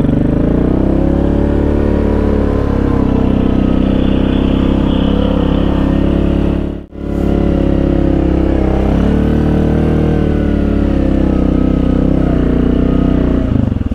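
Yamaha 686 cc single-cylinder ATV engine running at trail speed, its pitch rising and falling gently with the throttle. The sound cuts out briefly about seven seconds in.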